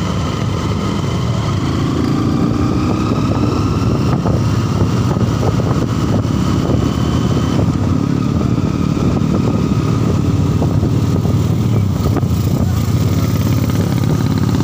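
Honda Verza 150's single-cylinder four-stroke engine running steadily while the motorcycle is ridden at street speed, under a constant low rumble of wind and road noise.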